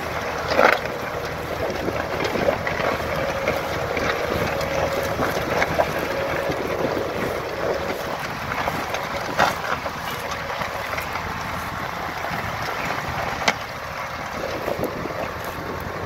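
Tractor engine running steadily under load as it pulls a two-furrow mounted plough through stubble, with wind on the microphone. A few sharp clicks stand out, about half a second in, then around nine and a half and thirteen and a half seconds.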